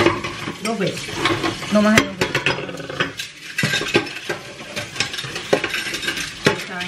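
Tap water running into a kitchen sink while dishes and metal utensils are washed by hand, with frequent clinks and knocks of glass and metal against the sink.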